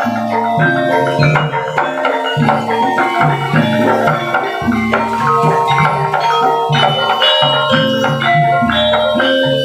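Live Javanese gamelan playing a Banyumasan gending: bright ringing mallet-struck metallophone notes over low held notes of gongs and lower instruments, in a steady flowing pattern.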